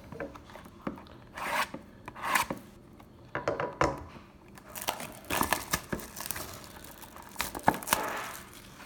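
Wrapping on a trading-card box being torn open and crinkled by hand, in a series of irregular rips.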